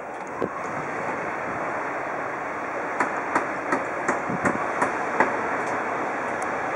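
JR Freight EF200 electric locomotive with its container train standing at a station platform: a steady rushing noise, joined about three seconds in by a run of sharp clicks, about three a second.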